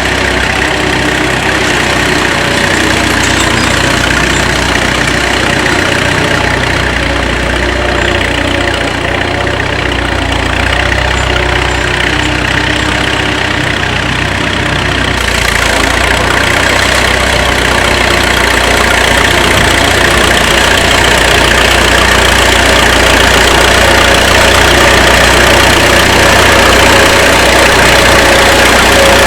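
1935 Fordson tractor's four-cylinder engine running steadily, getting louder through the second half.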